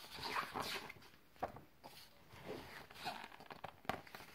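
Pages of a paperback picture book being turned and handled: several short, soft paper rustles and swishes.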